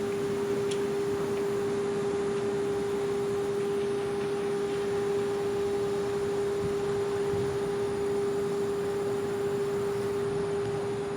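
Federal Signal 3T22A outdoor tornado warning siren sounding its steady alert signal: one unbroken tone held at a constant pitch.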